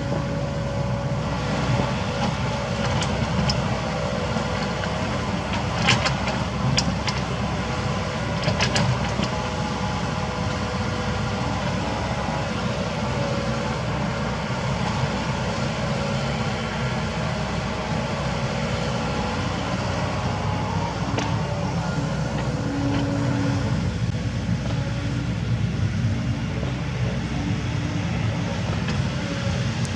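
Kobelco SK75 mini excavator's diesel engine running steadily as it works, with a few sharp knocks between about six and nine seconds in.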